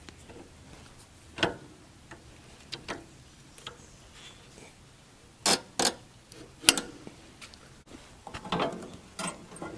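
Scattered sharp metal clanks and clicks, several seconds apart, from a portable sawmill's log clamp being worked by hand to hold the log on the bed. The loudest are a pair about halfway through and a sharper clank just after.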